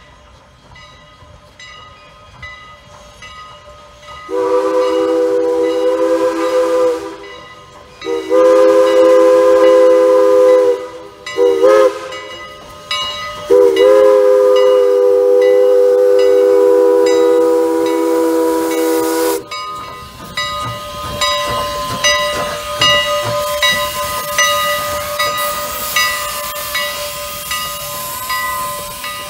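Steam locomotive whistle of several notes sounding together, blown long, long, short, long: the grade-crossing signal. A bell rings steadily about twice a second throughout, and after the whistle the passing steam train's running noise and hiss carry on under the bell.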